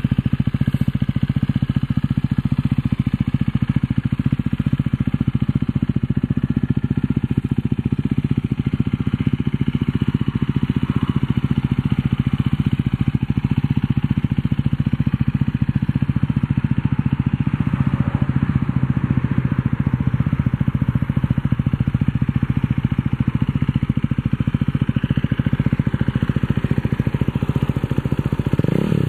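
A 2019 Husqvarna Svartpilen 401's single-cylinder engine idling steadily through a LeoVince aftermarket exhaust, an even, rapid run of exhaust pulses.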